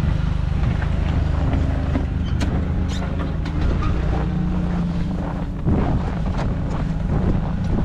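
An engine running steadily at idle, with a few scattered clicks and knocks over it.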